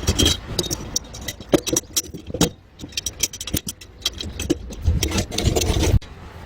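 Irregular clatter of light knocks and clicks, scattered through, over a low rumble, with a louder stretch of knocks about five seconds in.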